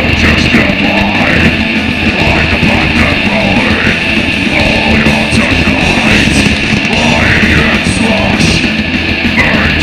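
Death metal band playing live through a festival PA: distorted electric guitars, bass and drums, loud and dense without a break.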